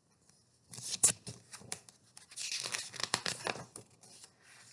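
Paper pages of a book rustling and crackling as they are handled and turned. The sound comes in two spells: a short one about a second in and a longer one from about two to three and a half seconds in.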